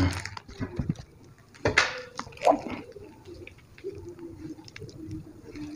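Chili sambal squeezed out of a small plastic bag onto rice: soft wet squishing and plastic handling noises, with two louder sharp crackles a little under two and about two and a half seconds in.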